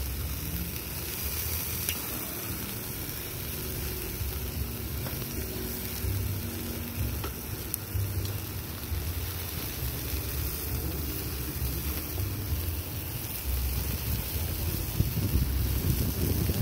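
Chicken wings sizzling on a charcoal grill grate, a steady hiss, with a low uneven rumble underneath.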